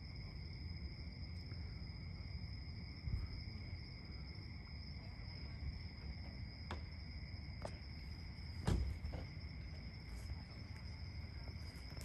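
Crickets trilling steadily in two high continuous tones over a low background rumble. A few faint clicks and one soft thump come about two-thirds of the way in.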